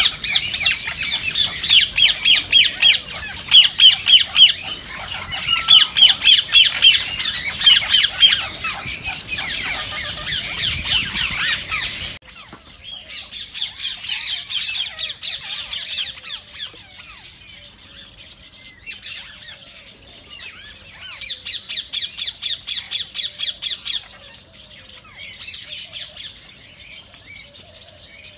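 A flock of Indian ringneck (rose-ringed) parakeets screeching, many shrill calls in quick succession. The calling is loud for about the first twelve seconds, when a low background rumble cuts off suddenly; after that it is softer, with another fast string of calls a little past the middle.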